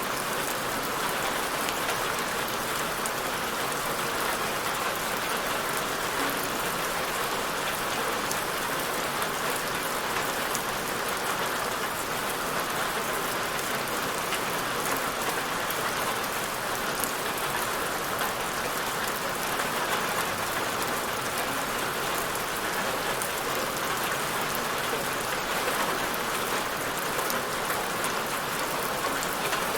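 Steady rain falling on a surface, an even hiss of many fine drops with no change in intensity.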